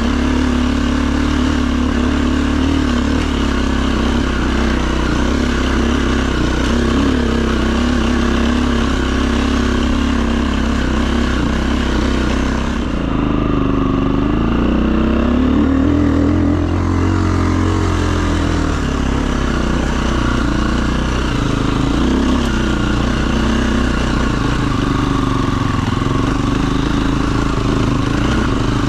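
Dirt bike engine running under way, its note rising and falling with the throttle, with a stretch of bigger rev swings about halfway through.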